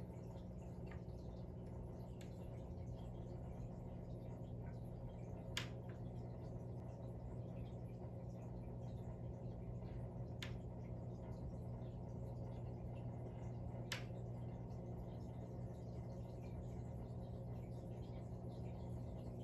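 Steady low hum of running aquarium equipment, with three sharp clicks spread through it.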